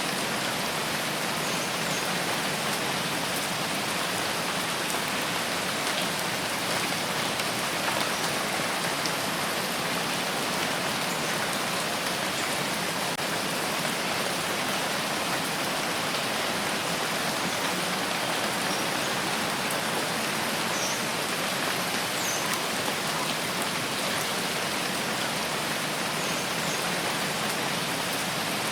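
Steady rain falling and pattering on a surface, an even hiss with faint drop ticks.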